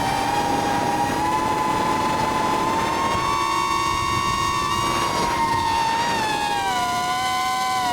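Whine of an FPV drone's electric motors and propellers in flight, a steady pitched hum with several overtones. Its pitch rises a little partway through and sinks again near the end as the throttle changes.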